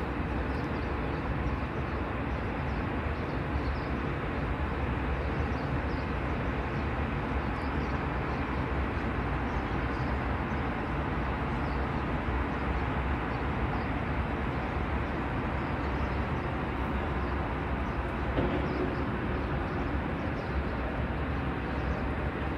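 Steady, even rumble of distant city traffic heard from high above, with no distinct events apart from a brief faint tone about 18 seconds in.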